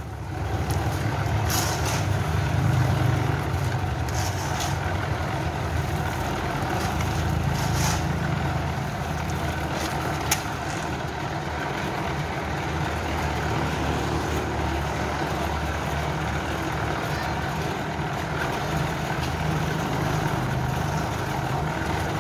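Small electric drum concrete mixer running steadily, turning a batch of concrete with a low, even sound, with a few short scrapes over it.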